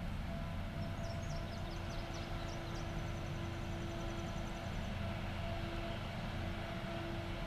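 Caterpillar 573C feller buncher running, its engine and hydraulics giving a steady hum with a held whine as it drives and swings its felling head. A bird chirps a quick run of high notes ending in a short trill in the first half.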